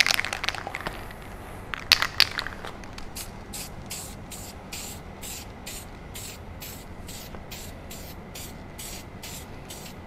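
Aerosol can of clear lacquer spraying in short hissing bursts, about three a second, as the finish is laid on in a thin coat. A few sharp clicks come first, the loudest about two seconds in.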